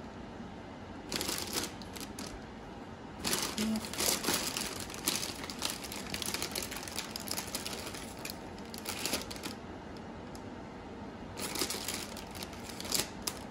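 Clear plastic bag crinkling in irregular bursts as a hand reaches in and takes out strawberries.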